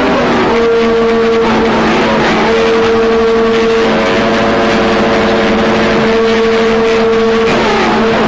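CB radio receiver tuned to 27.025 MHz AM picking up static and the carriers of several overlapping stations, which beat into steady heterodyne whistles: a low tone throughout and a higher one that drops out briefly and stops near the end.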